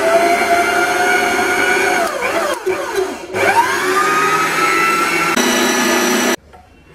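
Brandt stand mixer's motor whining as its wire whisk whips Chantilly cream in a steel bowl. The pitch dips and climbs back up about two to three seconds in, and the motor stops suddenly near the end.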